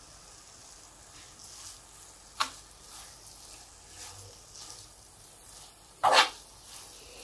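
A metal spoon stirring grated beetroot and sugar in a frying pan over the heat, with faint sizzling and soft scraping. Two sharp knocks of the spoon on the pan stand out, the second, near the end, the louder.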